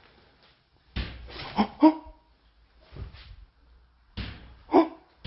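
Loud knocks or bangs on a wooden door, each with a short hollow ring. There is a cluster of three about a second in, a single one near the middle, and two more near the end.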